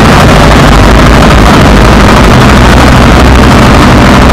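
Loud, distorted roar of a street procession as heavy lorries pass, so loud that it overloads the microphone; a steady low rumble under a dense wash of noise, with no clear beat or voices.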